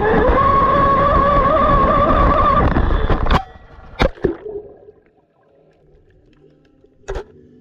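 Traxxas M41 Widebody electric RC speedboat running flat out, its brushless motor whining steadily over the rush of water. The motor sound cuts off suddenly about three and a half seconds in as the boat goes under, followed by a few sharp knocks and faint muffled gurgling.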